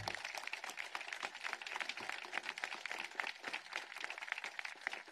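Crowd applauding: many hands clapping steadily.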